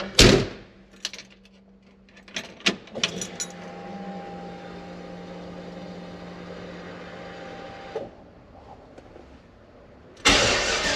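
A few sharp clicks and knocks in the cab, then a steady electric hum for about five seconds that cuts off suddenly. Near the end the truck's swapped 6.0-litre L96 LS V8 starts with a loud low rumble.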